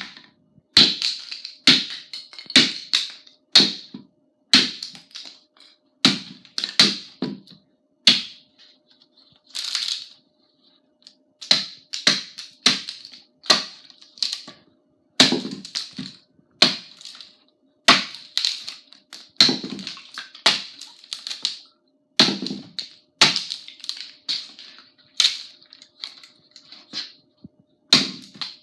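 Forged tomahawk chopping into an upright 2x4, a fast run of sharp wood-splitting strikes at about one to two a second, with a brief lull around ten seconds in.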